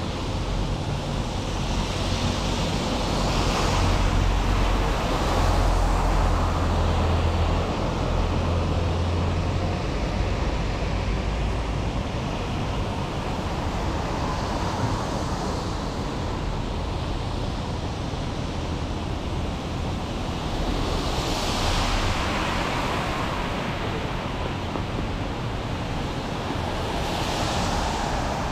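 Rain-soaked city street noise: a steady wash of rain and traffic, with tyres hissing on the wet road as vehicles pass, about three times. A heavy vehicle's low rumble swells through the first third.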